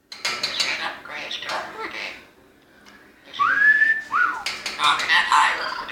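Orange-winged Amazon parrot chattering and squawking, with a clear whistle in the middle that rises and holds, then a short falling whistle, before the chatter resumes.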